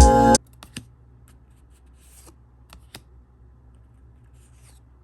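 Background music cuts off sharply a fraction of a second in, leaving faint clicks and soft rustling of trading cards being handled.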